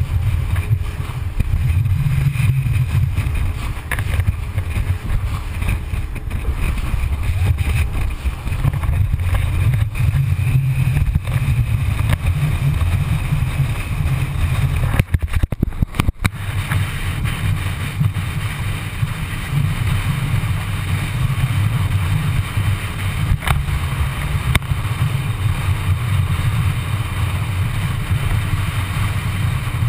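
Rigid inflatable boat under way: engine, hull on the water and wind make a steady low rumble, muffled inside a waterproof camera housing. There is a brief break about halfway through.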